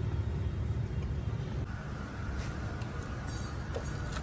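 Steady low mechanical rumble, like a vehicle engine running, with a few light clicks in the second half.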